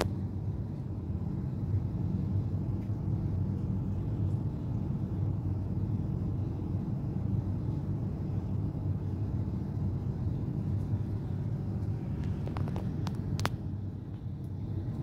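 A low, steady rumble, with a few faint clicks near the end.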